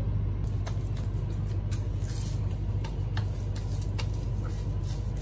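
Cling film crinkling and rustling under hands rolling cookie dough into a log, heard as scattered small clicks and crackles over a steady low hum.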